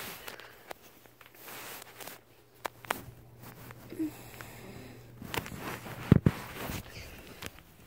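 Handling noise from the phone: fabric and plush rubbing and brushing against the microphone, with scattered knocks and clicks and a louder thump about six seconds in.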